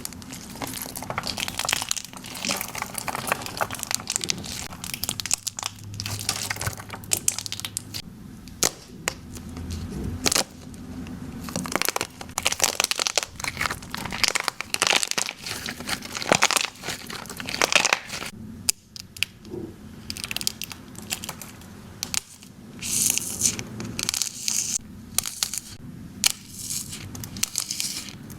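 Slime being squeezed and pressed by hand, a dense run of sharp crackles and pops throughout.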